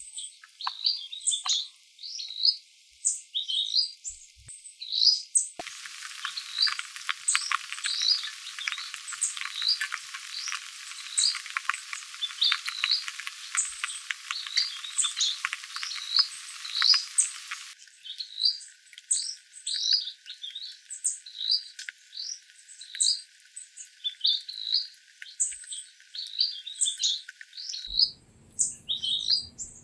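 A chorus of short, high chirping animal calls repeating over and over. Through the middle stretch a steady pattering hiss of rain runs underneath.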